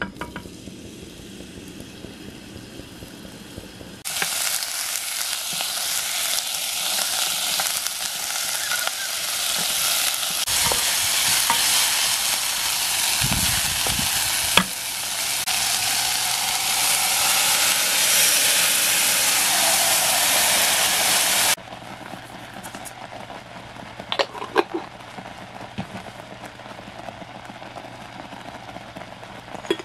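Bacon, onion and mushroom sizzling loudly as they fry in oil in a nonstick pot, stirred with a wooden spatula that knocks against the pan a few times. The sizzle starts about four seconds in and cuts off suddenly a little past two-thirds of the way through, leaving a quieter sound with a few more knocks.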